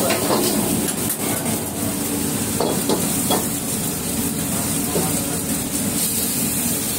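Oil sizzling in a steel wok over the steady rush of a gas wok burner, with a metal ladle scraping and clinking against the wok a few times around the middle.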